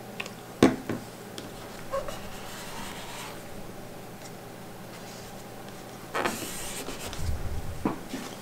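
Bench handling sounds: a few sharp clicks from a plastic squeeze bottle, then a gauze pad wiping across an aluminium beam with short dry rubbing swishes, the longest about six seconds in, followed by a few soft knocks.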